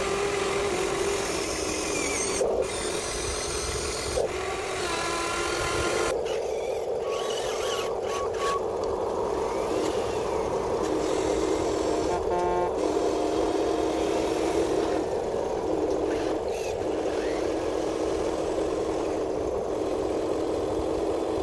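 Huina 1593 RC excavator's small electric motors whirring steadily as it works, a continuous whine whose pitch steps a little as the motors change.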